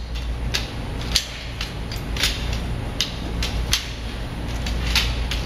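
Metal display-frame poles clicking and knocking as their sections are fitted together. The sharp clicks come irregularly, about every half second, over a steady low hum.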